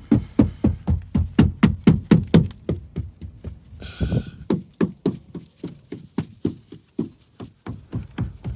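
Rubber mallet tapping a BMW F10 door seal into place on the door frame: rapid dull knocks, about four a second, growing lighter about halfway through.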